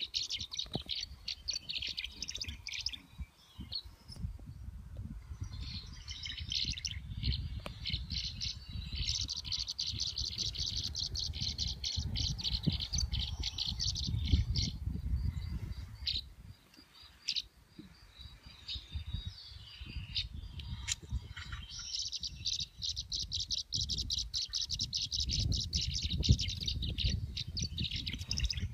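Tree swallows calling: long runs of fast, high, twittering chirps, some from the live flock and some recorded tree swallow calls played from a phone's bird app, with a lull in the middle. A steady low rumble runs underneath.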